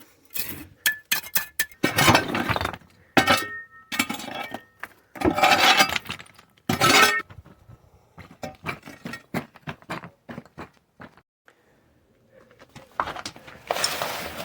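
Gravel ballast being tipped and scraped into a trench over a drain pipe, the stones clattering and rattling in several separate loads, with a lull shortly before more comes in near the end.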